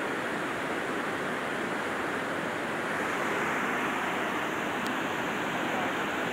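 Steady rushing of a fast, muddy river.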